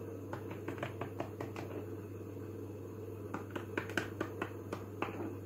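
A stack of thin disposable plastic cups clicking and crackling as a heated screwdriver is worked through their bottoms to melt drainage holes. Small sharp clicks come in two scattered runs, one in the first couple of seconds and another starting about three seconds in.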